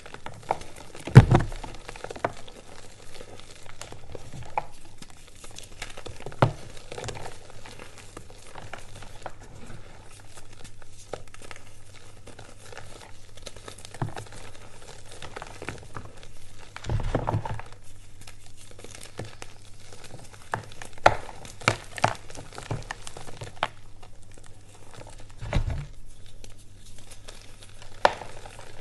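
Reformed gym chalk being crushed and crumbled between the hands: a steady crunching and crackling as the pressed chalk breaks up and powder sifts down. A few heavier thuds stand out, about a second in, near the middle and near the end.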